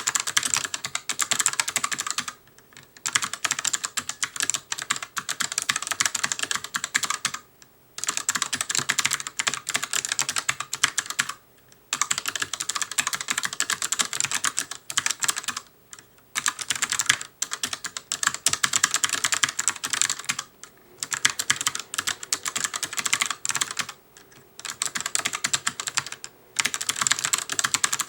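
Fast continuous typing on an ELECOM ARMA TK-ARMA50BK low-profile mechanical keyboard with clicky switches: rapid bright key clicks in long runs, broken every few seconds by short pauses.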